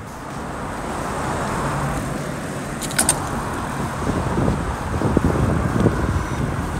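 Steady rumble of wind and road noise from riding a bicycle along a city street, with car traffic passing. A couple of sharp clicks about three seconds in.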